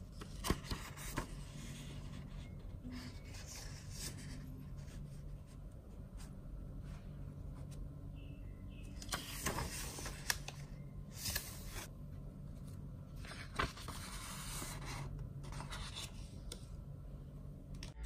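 Pages of a thick book being turned and smoothed flat by hand: quiet paper swishes and rustles, a few near the start and several more in the second half, over a faint low hum.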